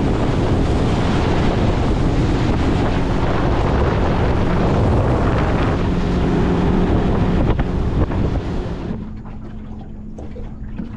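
Boat under way at speed: wind buffeting the microphone and water rushing past the hull, over the motor's low steady drone. About nine seconds in it cuts to a much quieter steady motor hum with lapping water.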